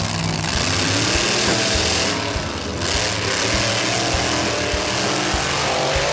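Engine sound effect running steadily over background music with a steady thumping beat.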